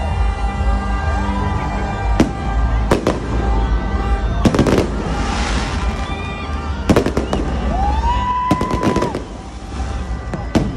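Fireworks: rockets bursting overhead in a series of sharp bangs and crackles, every second or two and sometimes in quick clusters, with a rising whistle about eight seconds in.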